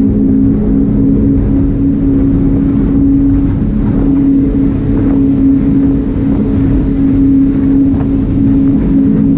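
MTI 390X catamaran speedboat's Mercury outboard engines running steadily under way, a constant engine drone with wind rushing over the microphone.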